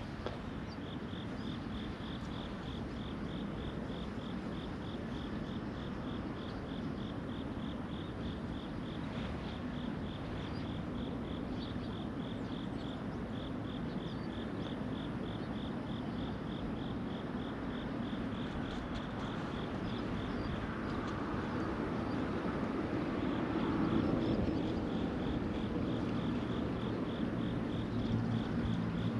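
An insect chirping in an even rhythm of several chirps a second, with two short pauses, over a low steady rumble that grows louder toward the end.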